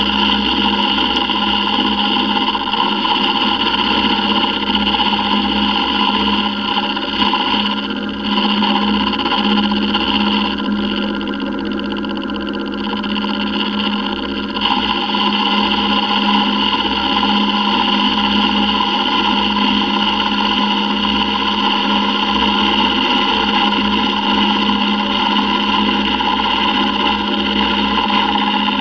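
Milling machine running an end mill along the inside edge of a metal T6 turbo exhaust flange: a steady motor hum with a high cutting whine. The cutting sound eases from about eight seconds in and comes back strongly around fifteen seconds.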